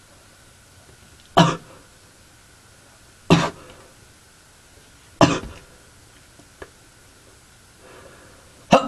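A teenage boy with a cold coughing: three short, sharp coughs about two seconds apart, with another at the end.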